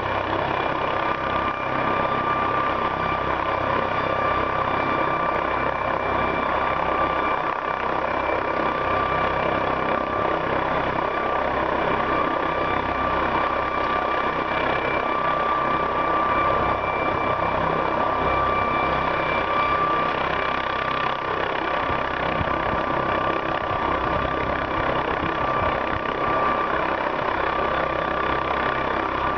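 Air ambulance helicopter's turbine engine running on the ground before lift-off: a steady high whine over a constant rumble.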